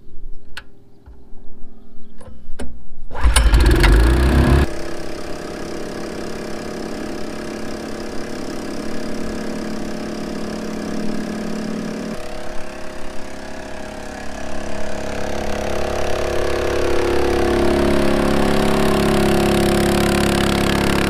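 Small gasoline engine of a portable water-transfer pump being pull-started: a few clicks, a loud rush about three seconds in as it catches, then running steadily. From about fourteen seconds its pitch rises as it is throttled up, and it settles at the higher speed.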